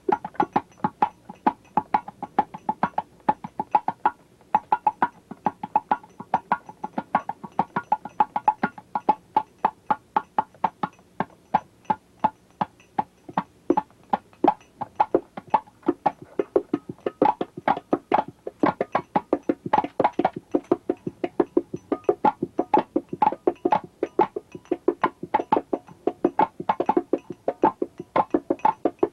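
Instrumental music built from a fast, steady run of short, sharp percussive notes.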